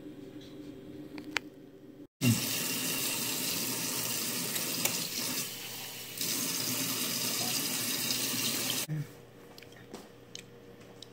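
Kitchen tap running steadily, starting suddenly about two seconds in, getting a little louder about six seconds in, and cutting off abruptly about two seconds before the end.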